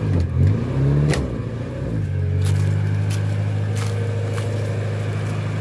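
1971 Ford Corcel's four-cylinder engine running. The revs dip and rise over the first couple of seconds as the car is set off, then settle into a steady run.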